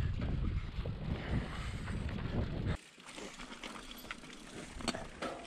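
Mountain bike riding fast downhill, with heavy wind rumble on the microphone and the bike rattling. About three seconds in it cuts off abruptly to quieter riding with scattered clicks and rattles from the bike.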